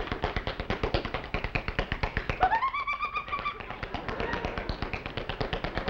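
Rapid tap dancing: a fast, steady run of sharp taps from a dancing couple's shoes on a stage floor. Midway through comes one high whoop that rises sharply, then holds a wavering note for about a second.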